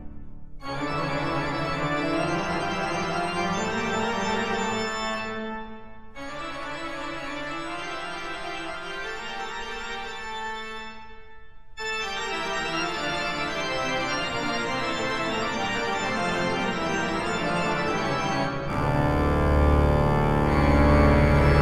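Organ music: held chords that pause briefly about six and eleven seconds in. Near the end a deep bass comes in and the music grows louder.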